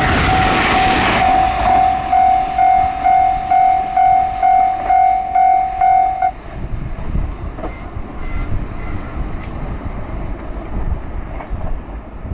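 Japanese level-crossing warning bell ringing in a steady electronic clang about twice a second, over the fading rumble of a train that has just passed. The bell cuts off about six seconds in, as the crossing clears, leaving only a faint receding rumble.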